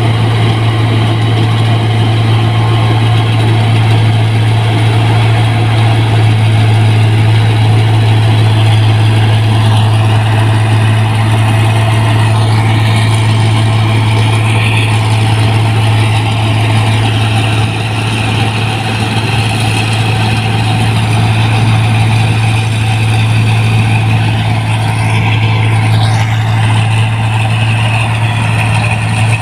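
New Holland 1545 combine harvester running steadily while harvesting rice, its engine and threshing machinery making a constant low drone.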